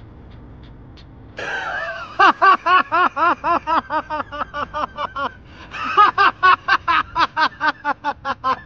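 A man laughing loudly: a sharp intake of breath, then two long runs of rapid "ha-ha-ha" pulses, about five a second, with a brief pause between them.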